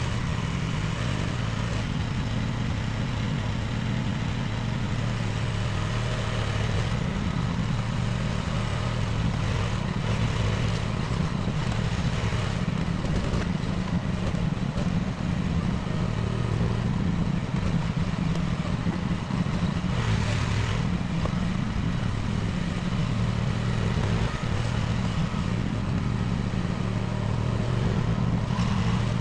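Small mini excavator engine running steadily under work, with a few brief surges in the noise.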